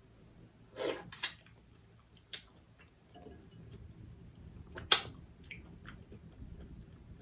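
Close-up eating sounds of boiled crawfish dipped in butter sauce: a few short wet smacks and clicks, the sharpest about five seconds in, with soft chewing in between.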